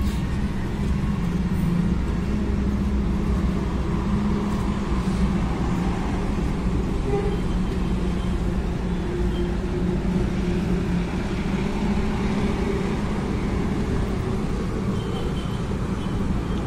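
Steady low rumble of road traffic, even in level throughout.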